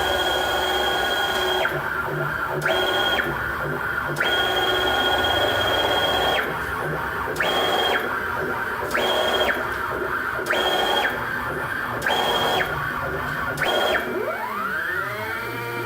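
Stepper motors of a DIY CNC laser engraver whining through a series of moves: a steady high whine that starts and stops about eight times, each time ramping up and down in pitch. Near the end the pitch rises and falls in smooth repeated arcs as the axes trace curves.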